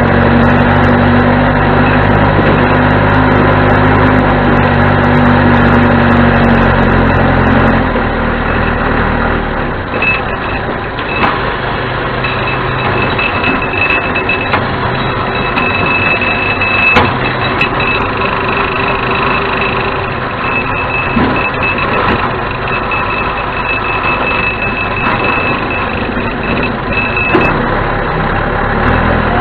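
John Deere 210C backhoe loader's four-cylinder diesel engine running at higher revs, then dropping lower and quieter about eight seconds in. From about ten seconds in, a high-pitched backup alarm beeps on and off until near the end.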